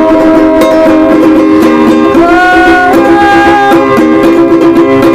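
Music: a song with a plucked ukulele-like string accompaniment and held melody notes between sung lines.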